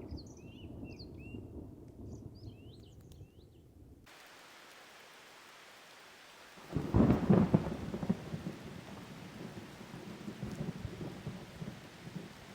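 Distant thunder rumbling while small birds chirp. After an abrupt change to steady rain hiss, a loud thunderclap breaks about two-thirds of the way in and rolls on in rumbles under the rain.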